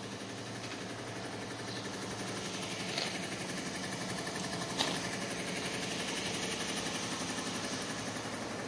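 An engine idling steadily with a fast, even mechanical rhythm, and two short clicks about three and five seconds in.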